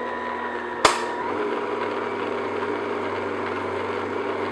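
Electric stand mixer motor running steadily at low speed, its dough hook turning through dry flour in a glass bowl, with one sharp click about a second in.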